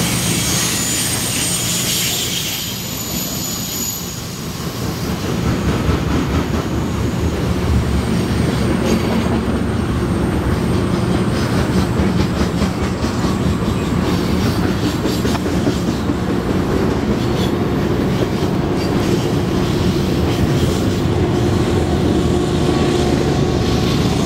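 Canadian Pacific grain train of covered hopper cars rolling past: a steady heavy rumble and clatter of steel wheels on rail, with high-pitched wheel squeal in the first couple of seconds.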